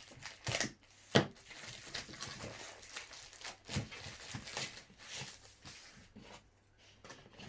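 Plastic bag being torn open and handled, with irregular crinkling and tearing and one sharp louder rip about a second in; the crinkling thins out near the end.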